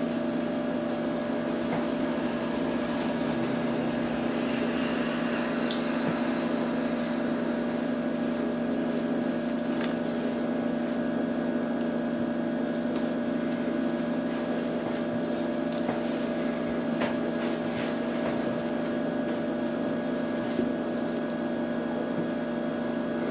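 Steady mechanical hum holding several constant tones, with a few faint clicks.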